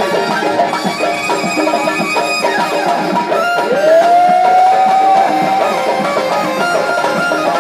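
Tunisian traditional folk music played live, with percussion and a melody line. About three and a half seconds in, a long note slides up and is held for about two seconds.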